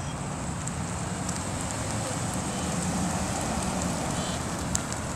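2015 Chevrolet Caprice police car driving past at low speed on asphalt: engine hum and tyre noise, a little louder as it comes closest about three seconds in.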